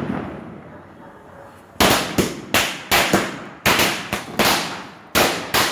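Firecrackers bursting one after another in a rapid, uneven series of sharp bangs, about three a second, starting about two seconds in after a faint hiss.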